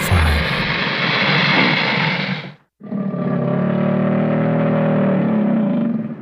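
Alligator sound effect: a long hiss, a brief break, then a low rumbling growl starting about three seconds in.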